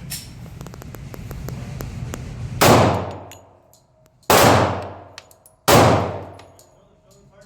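Three shots from a .45 ACP Glock pistol, the first about two and a half seconds in and the next two about a second and a half apart, each echoing off the walls of an indoor range.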